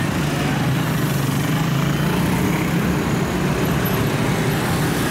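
Motorcycle traffic passing close by: a steady mix of small engines running and road noise.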